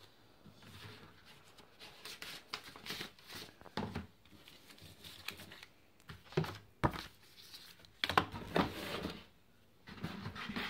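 Paper instruction sheets and a paper envelope rustling and crinkling as they are handled, with scattered light knocks and scrapes of cardboard packaging. Near the end hands shift the molded pulp packing insert in the box.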